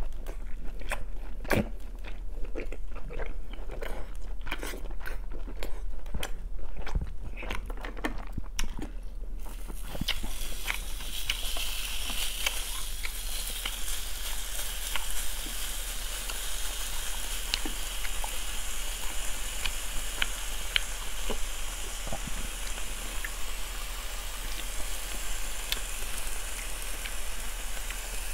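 Close-miked chewing and wet mouth sounds for about the first nine seconds. Then raw beef is laid on a hot ridged grill pan over a mini tabletop brazier and starts sizzling: a steady hiss with occasional light ticks and pops that carries on to the end.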